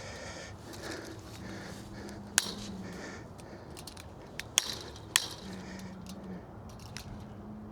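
A few sharp metallic clicks and taps, irregularly spaced, from hand tools working on wire fence hardware. A faint steady low hum runs underneath.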